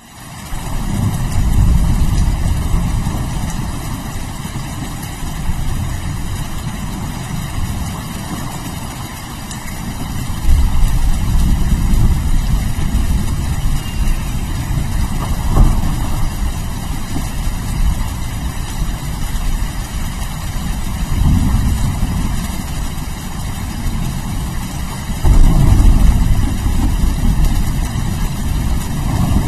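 Steady heavy rain with long, low rolling thunder rumbles that swell several times: about a second in, around ten seconds in, and twice more near the end.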